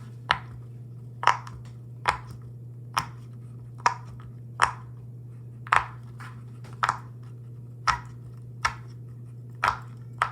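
Silicone pop-it fidget toy having its bubbles pressed one at a time, a sharp pop roughly once a second.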